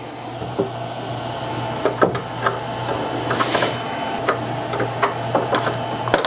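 Back cover of a Dell Inspiron 27 7700 all-in-one being unclipped by hand: the cover rubs and scrapes against the chassis as the retaining clips pop free in a run of sharp clicks, with the loudest snap near the end.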